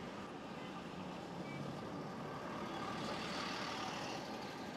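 Road traffic noise from cars and buses, a steady rush of engines and tyres that swells a little about three seconds in.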